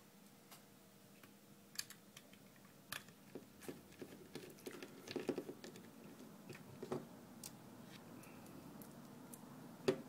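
Small plastic parts of a keypad clicking and tapping as they are handled and fitted together, in light irregular clicks with a busier cluster about five seconds in and a sharper click near the end.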